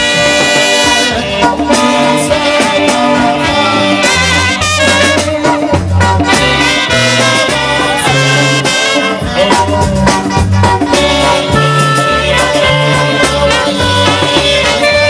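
Lively band music with a bass line stepping from note to note under a dense band sound.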